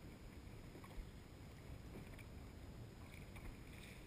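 Faint steady wind and water noise aboard a small boat at sea, with one light knock about a second in.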